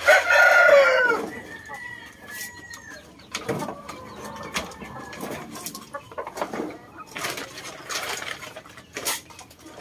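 A rooster crows loudly at the start, the call falling in pitch over about a second. After it, chickens cluck softly among scattered sharp clicks as they peck at feed.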